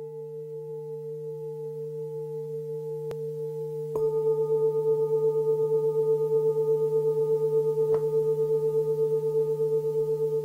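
Singing bowl ringing in long, overlapping tones over a steady low hum, the ring wavering in an even pulse. A fresh strike about four seconds in makes it louder and brighter, and a softer strike comes near eight seconds.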